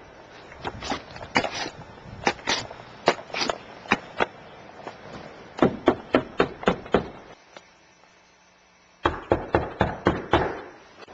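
A series of sharp knocks, two or three a second, stopping about seven seconds in; after a short lull a quicker run of about seven knocks follows.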